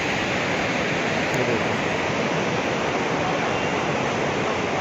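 Fast-flowing mountain river rushing over boulders: a steady, even rush of water.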